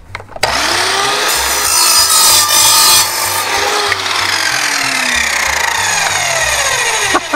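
Evolution R210 compound mitre saw motor starting with a rising whine, its multi-material blade cutting through a block of wood with screws in it, loudest for about two seconds during the cut. The motor then winds down with a slowly falling whine.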